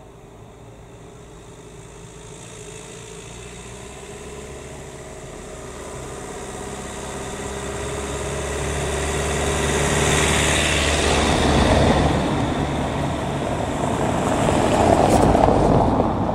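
A small van and then a car drive over the level crossing and pass close by on the paved lane, engine and tyre noise building up as they approach. The first is loudest about ten to twelve seconds in, the second about fifteen seconds in.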